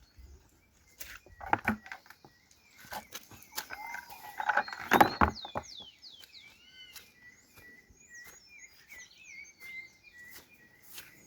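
Small birds chirping, with many short quick rising and falling calls through the second half. Several knocks and clatters come before them, the loudest about five seconds in.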